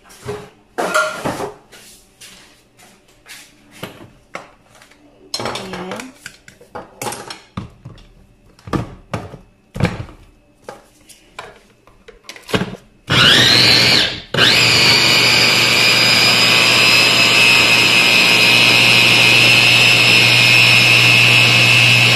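Knocks and clicks as a Moulinex mini chopper's motor head is fitted onto its plastic bowl. About thirteen seconds in, its motor starts with a rising whine and runs for a second, stops briefly, then runs steadily, blending a cream and cocoa mixture.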